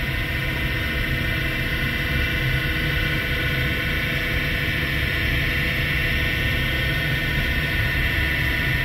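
Haas VF-6 trunnion vertical machining center running with its table traversing slowly along the ball screw. The axis drives give a steady mechanical hum with a thin, even high whine.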